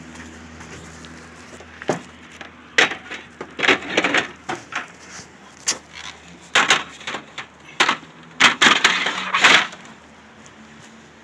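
Irregular clatter of knocks, bangs and crinkly rustles as dumpster debris is handled and rummaged through, densest in the second half, over a steady low hum.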